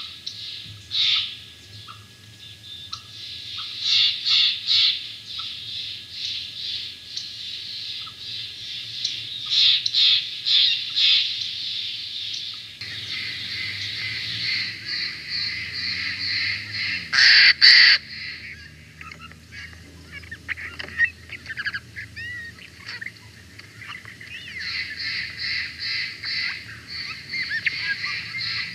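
Steller's jay calling: runs of harsh, quickly repeated high notes, several times over, with one louder call about seventeen seconds in.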